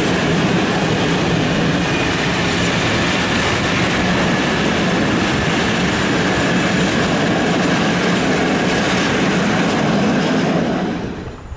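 Freight train of open coal wagons rolling past on the rails: a loud, steady clatter and rumble of wheels on track. The last wagon passes near the end and the sound drops away quickly.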